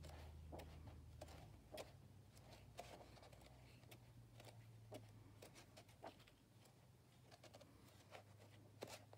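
Faint rustle of paper pages being turned one after another in a large old book, about once a second, over a low steady hum.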